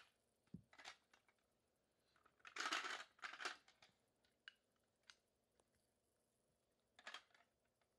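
Faint clicks and clatters of hard plastic shape-sorter blocks being handled and pushed into the cube, the loudest a rattle about three seconds in and another brief one near the end.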